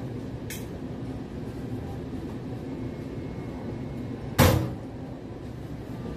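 Dishware being handled at a kitchen sink: a light click near the start, then one loud knock with a short ring about four seconds in as an item is set down. A steady low background noise runs underneath.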